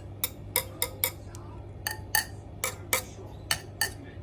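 Wire spokes of a Ducati Multistrada 1260 rim tapped one after another: about a dozen sharp metallic pings, each ringing at a different pitch. The differing notes are the sign of uneven spoke tension that needs adjusting.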